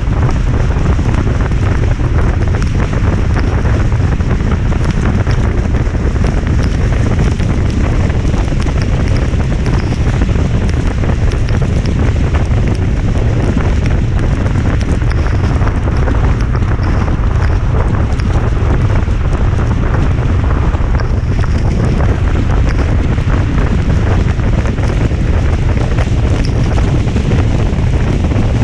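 Steady rain with wind blowing on the microphone, a loud unbroken noise that does not change.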